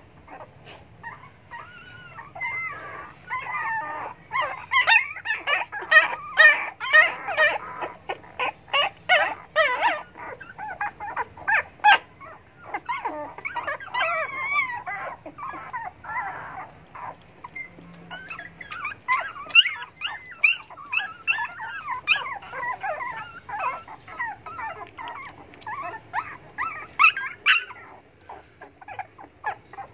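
A litter of young puppies whimpering and squealing, many short high whines overlapping one another, busiest in two long stretches with a lull in the middle. Hungry puppies crying for food.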